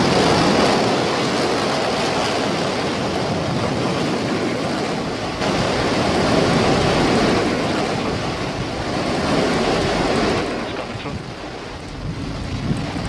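Rocket engine firing: Starship SN5's single Raptor engine gives a loud, dense rushing noise with no clear pitch during its hop. The level shifts abruptly about five and ten seconds in.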